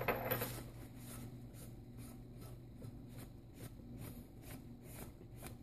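Faint light clicks and scratches, about two or three a second, of a phone screen and small parts being handled on a workbench, over a low steady hum.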